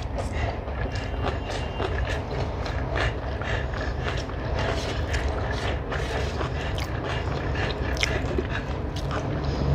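Close-up eating sounds: chewing and mouth clicks, with fingers mixing rice and curry on a metal plate, many small irregular clicks and crackles. A steady low rumble runs underneath.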